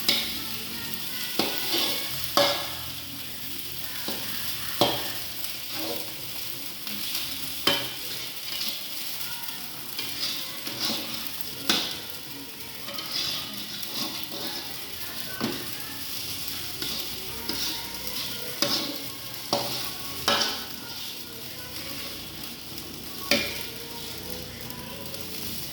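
Fried rice sizzling in a hot pan as it is stirred, with the cooking utensil knocking and scraping against the pan every second or two.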